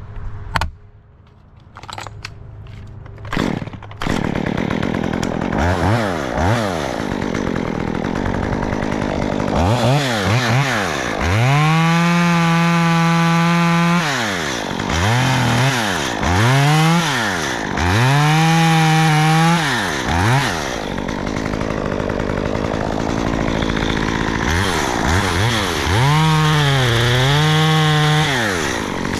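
A few sharp knocks, then from about four seconds in a two-stroke chainsaw runs, revved up and held at high speed several times, each time dropping back to a lower speed, as it cuts a notch in a tree section.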